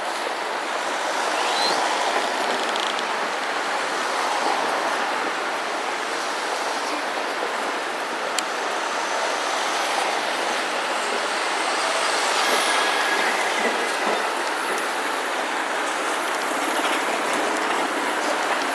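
Steady noise of a vehicle in motion, with a few faint high squeals.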